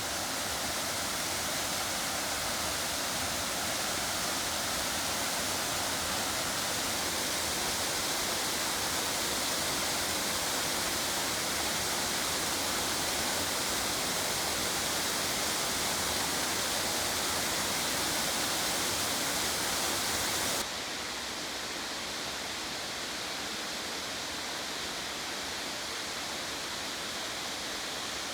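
A waterfall swollen by heavy rain, its water pouring down in a steady rush. About three-quarters of the way through, the sound drops suddenly to a quieter, duller rush.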